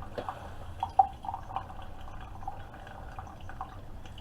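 Keurig K-Supreme Plus pod coffee maker dispensing coffee into a mug: irregular dripping and trickling of liquid, with a low steady hum underneath and one sharper drip about a second in.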